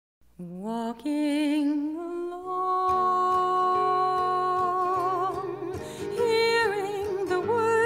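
A woman's voice singing a slow, wordless melody with vibrato: it slides up into a long held note, then moves into ornamented turns. A soft low instrumental accompaniment comes in about three seconds in.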